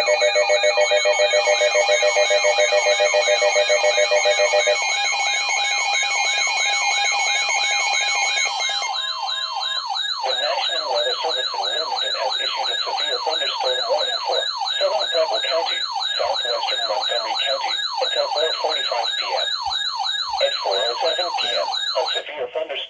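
Layered electronic emergency alert tones for a severe thunderstorm warning: several siren-like tones warbling rapidly up and down, with a fast pulsing tone beneath them that stops about five seconds in. The warbling cuts off near the end.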